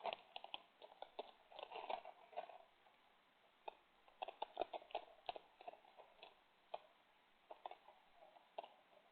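Raccoon and opossum eating, chewing and crunching food: faint irregular clicks and crunches coming in clusters, busiest in the first couple of seconds and again around the middle, then only scattered clicks.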